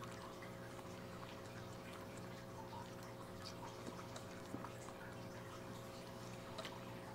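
White-faced capuchin monkey sucking on a baby bottle: faint, soft clicks over a steady background hum.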